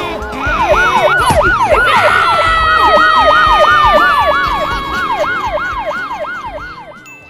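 Emergency vehicle siren in a fast yelp, about three rising-and-falling sweeps a second. A steady horn blast joins about two seconds in, its pitch sinking slowly, and the sound fades away near the end.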